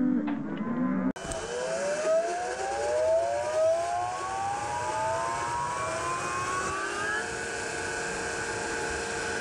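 A cow lowing for about the first second. Then, after a cut, a vehicle engine accelerates, its pitch climbing steadily for several seconds before holding steady.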